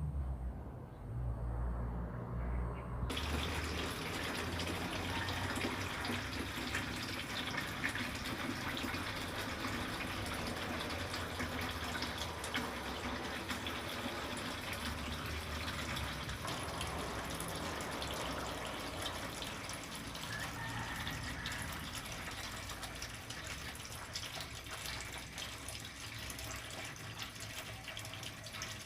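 Trickling, splashing water: a steady rushing babble that starts suddenly about three seconds in, after a low rumble.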